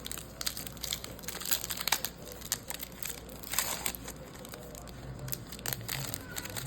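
A trading-card pack wrapper crinkling and tearing as it is opened, in irregular crackles.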